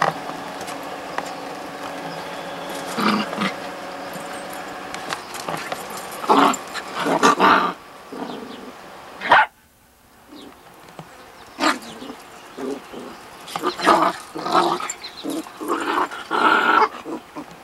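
Shaggy young dogs barking and growling in short bursts as they play-chase each other. The sound drops out for about a second near the middle.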